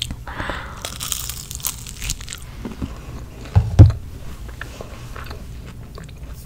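Close-miked eating: a person chewing and crunching Chick-fil-A food, with many small wet mouth clicks. A brief, loud, low thump comes a little past halfway.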